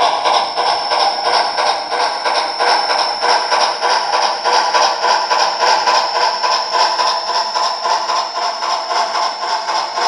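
Soundtraxx Tsunami2 sound decoder in an HO scale Western Maryland 4-6-6-4 Challenger playing steam exhaust chuffs through the model's small speaker, a quick, even beat, while the train's freight cars roll along the track.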